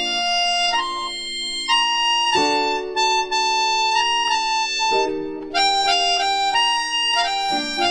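Background music: a melody with rich overtones over held chords that change about every two and a half seconds.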